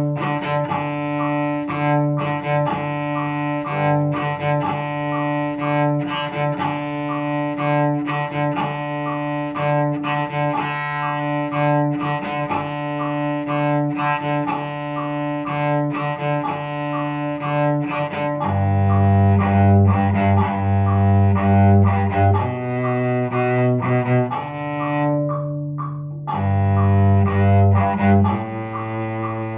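Solo cello played with the bow: quickly repeated detached notes on one low pitch, then lower, longer held notes that step between pitches, with a brief pause near the end.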